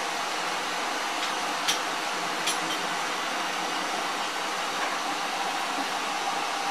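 Steady loud hiss of steam escaping from a standing steam locomotive, with two sharp clicks under it about two seconds in.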